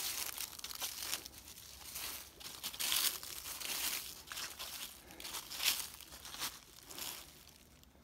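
Irregular crunching steps through dry fallen autumn leaves, loudest about three seconds in and again near six seconds.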